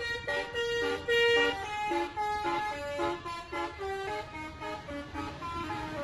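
Bus telolet horn, a multi-trumpet air horn, playing a quick tune of short notes that jump from pitch to pitch, several notes a second.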